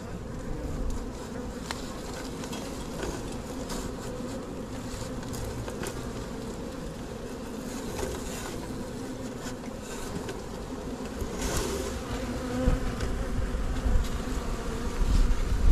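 A disturbed honeybee swarm in the air around an open comb, making a dense, steady buzzing hum as the bees take flight while their comb is cut out. Low rumbling rises underneath near the end.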